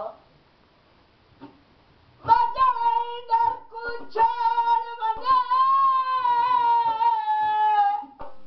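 After about two seconds of near silence, a single high-pitched voice sings a Punjabi Sufi kalam in long, held, wavering notes. The voice fades out near the end.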